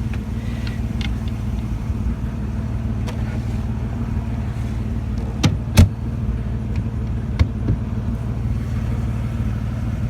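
Car engine idling steadily, with two sharp knocks about five and a half seconds in and two lighter ones a couple of seconds later.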